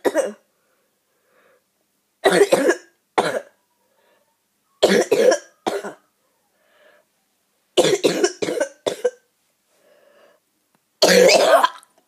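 A boy coughing in repeated fits of a few coughs each, a second or two apart, the longest and loudest fit near the end; he has a bad cough.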